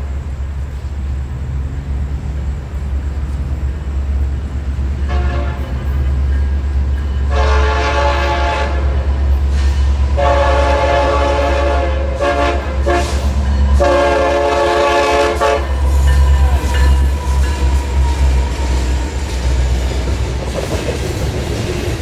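Air horn of an approaching freight train's SD70M-2 diesel locomotives: a short blast about five seconds in, then three long blasts, over the low rumble of the diesel engines. After the horn stops, the locomotives go by and the train cars begin clacking and rattling over the crossing near the end.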